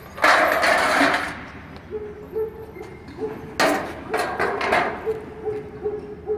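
Thin sheet-metal shingle tile rattling and scraping as it is pulled out of a press die, then a quick run of clattering knocks about three and a half seconds in as the sheet is handled and set down. A faint machine hum sounds underneath.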